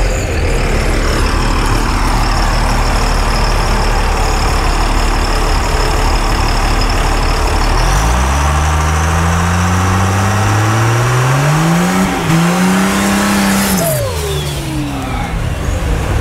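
Compound-turbocharged drag truck making a run down the strip: a loud engine and exhaust, then the engine pitch climbing steadily, breaking briefly at a gear change about twelve seconds in, climbing again, and dropping sharply near the end.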